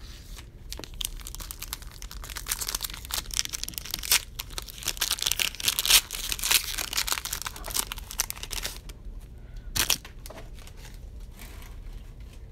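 Foil wrapper of a pack of football trading cards being torn open and crinkled: several seconds of dense crackling, then one short, sharp crackle near the end.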